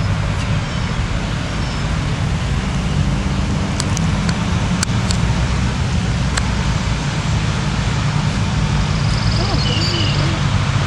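Motor vehicle engine idling, a steady low hum, with a few sharp clicks in the middle.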